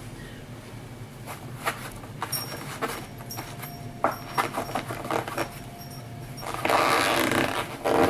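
Paper towel wiping and scrubbing spilled battery acid off a tabletop: a run of short rubs and rustles, then a longer, harder scrub near the end.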